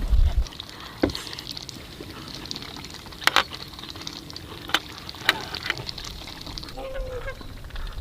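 Wind rumbling on the microphone stops about half a second in. After it come a few scattered sharp clicks and knocks over a quiet outdoor background.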